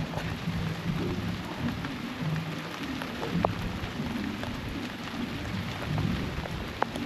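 Steady rumbling wind noise buffeting the microphone on open water, with a few small clicks and knocks.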